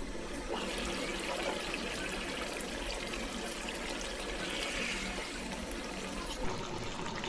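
Steady sound of running or pouring water, with a few faint clicks.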